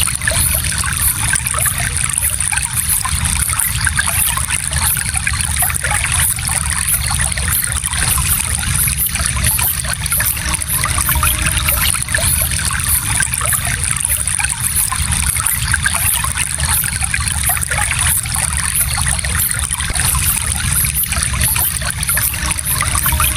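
Gentle stream of water flowing and trickling steadily, an even splashing hiss without pauses.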